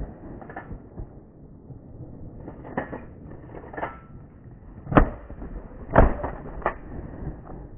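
Shotgun shots during a goose hunt: a string of sharp blasts, the two loudest a second apart past the middle, with fainter shots from other guns in the party before and after them.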